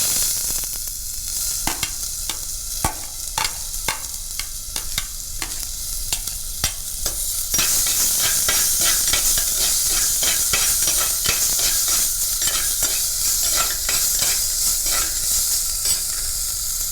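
Chopped onion sizzling in hot coconut oil in a pan while a spatula stirs it, scraping and tapping against the pan many times. The sizzle grows louder about seven and a half seconds in.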